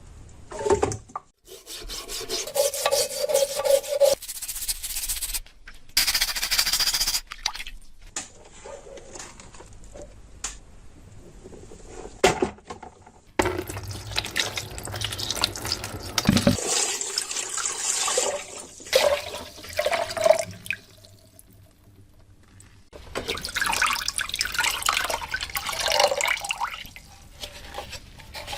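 Water running and splashing in stop-start spells, with rubbing and handling noises, as parts of a rusty old oil lamp are washed.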